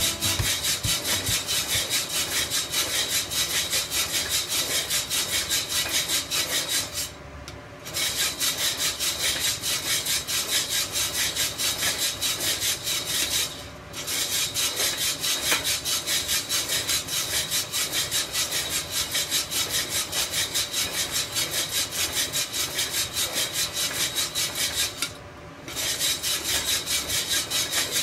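Coffee beans tumbling and sliding inside a hand-cranked stainless-steel drum roaster as it is turned, an even scraping rattle about four times a second that stops briefly three times. The beans are in a light roast, just short of first crack.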